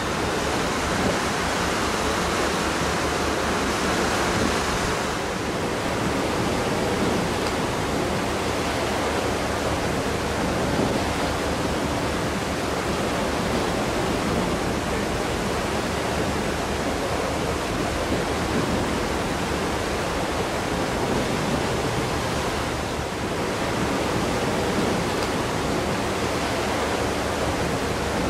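Steady rushing noise of wind and sea water on a ferry at sea, with a low buffeting rumble underneath.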